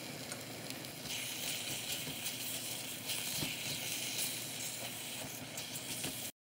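Food sizzling and hissing as it cooks on the stove, growing louder about a second in and cutting off abruptly near the end.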